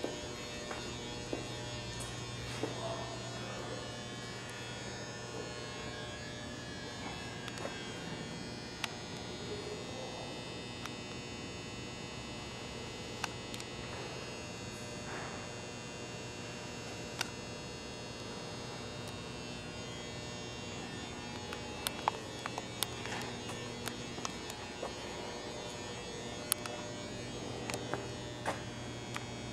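A steady low hum with faint, scattered light clicks and knocks.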